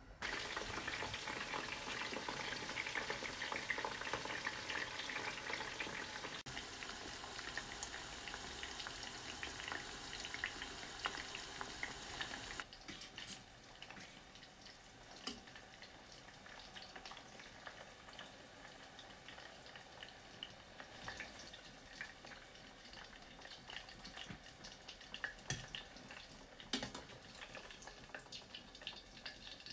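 Food frying in hot oil: a loud, dense sizzle that drops suddenly about twelve seconds in to a quieter sizzle with scattered pops and crackles.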